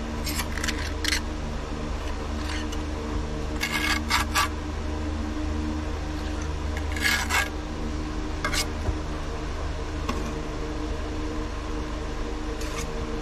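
Steel pointing trowel scraping Portland lime type S mortar into the cut-out joints of a concrete block foundation wall, in about five short scrapes a few seconds apart, over a steady low hum.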